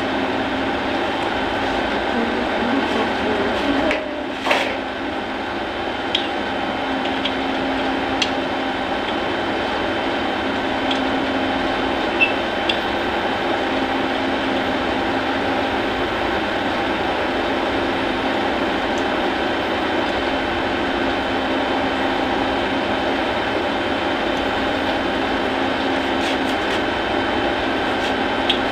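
Steady mechanical hum of running refrigeration equipment, with a short burst about four and a half seconds in and a few light clicks afterwards.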